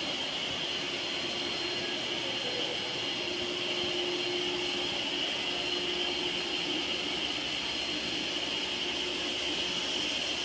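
Steady machine whir with a high hiss and a faint whining tone, unchanging throughout.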